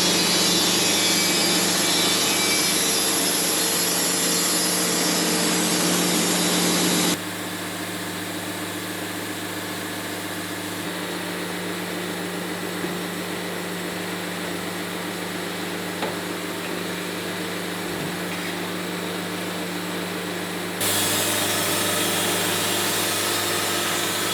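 Engine-driven Mobile Dimension sawmill running and sawing a cedar log: a steady engine drone under the hiss of the circular blade cutting. The sound drops abruptly quieter about seven seconds in and comes back louder near the end.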